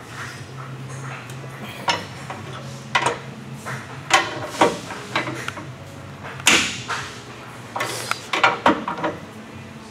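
Steel pry bar levering against a MegaHitchLock Coupler Vault trailer coupler lock in an attempt to pry it off, giving about eight irregular metallic clanks and knocks as the bar shifts and bites, over a steady low hum.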